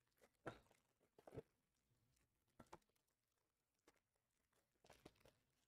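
Faint, brief crinkles of foil trading-card pack wrappers being handled, a few short rustles spread over the stretch with near silence between them.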